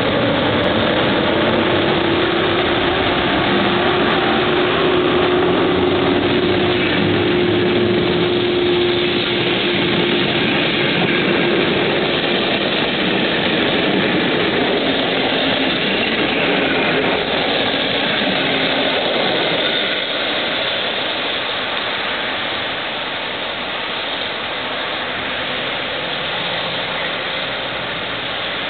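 EP07 electric locomotive and its passenger coaches pulling out and rolling past, a steady rumble of wheels on rail. A thin whine runs through the first dozen seconds. The sound falls away in the last third as the train draws off.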